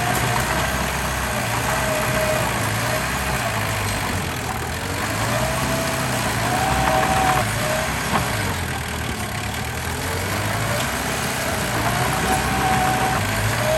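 Diesel engine of heavy earthmoving machinery running steadily, its pitch rising and falling several times as the load changes.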